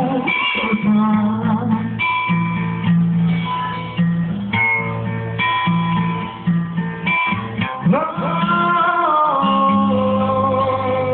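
Acoustic guitar strummed with a man singing along. About eight seconds in, his voice slides up into a long held note.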